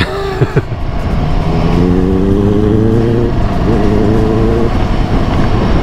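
Royal Enfield Himalayan 450's single-cylinder engine running at a steady cruising pace under the rider, with a continuous rush of wind and road noise. A couple of short knocks come near the start, and about three and a half seconds in the engine note breaks briefly and comes back at a slightly different pitch.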